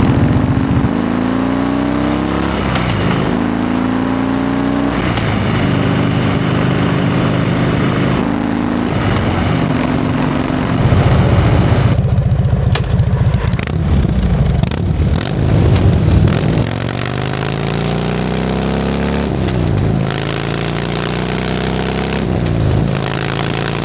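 2012 Harley-Davidson Dyna Fat Bob's 96-cubic-inch Twin Cam V-twin riding along, close-miked under the tank and at the rear fender. It pulls up through the gears, the pitch rising and dropping back at each upshift, eases off with a few sharp clicks about halfway, then accelerates again.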